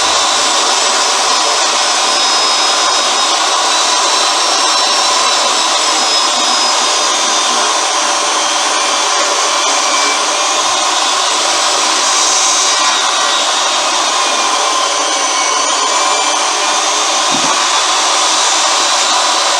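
A power tool's motor running steadily: a loud, even rush of noise with a faint wavering whine, holding constant with no pauses.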